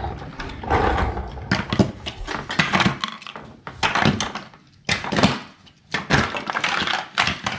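Plastic toys being handled and knocked together: irregular clatters, clicks and thunks.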